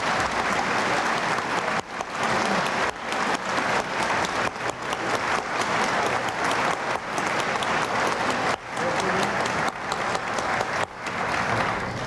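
Audience applauding: a sustained round of clapping that dies away at the end.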